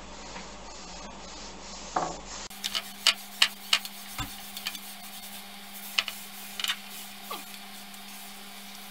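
Plastic backing film crackling as it is peeled off a flexible self-adhesive solar cell and the cell is rubbed down by hand. There is a run of sharp crackles about two and a half seconds in, a few more later, and a couple of short falling squeaks, over a steady low hum.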